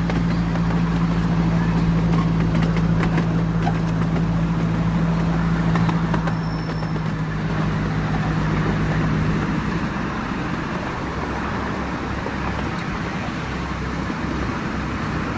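Miniature railway train running along its track: a steady low mechanical hum over the rush of rolling wheels and wind. The hum drops away about nine to ten seconds in, leaving the rolling noise.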